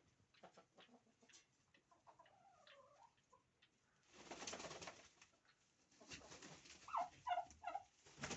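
Domestic turkeys calling: a wavering call about two seconds in and three short pitched notes near the end, with a brief hissing rush in between.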